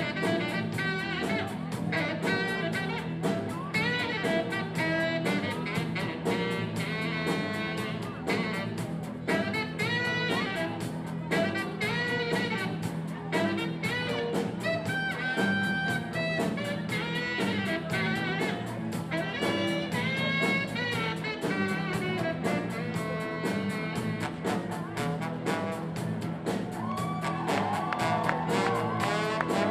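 A band playing a blues number with horns; the music is dense and continuous.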